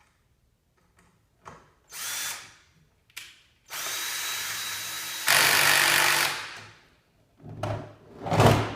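Electric screw gun driving the screw that holds a plastic snow-thrower wheel on its axle: a short spin, then a longer run that gets louder partway through before it stops. A few knocks follow near the end.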